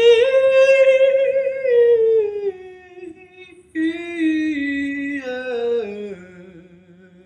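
A solo voice singing unaccompanied, in two long held phrases that each step down in pitch, with a short break about three and a half seconds in.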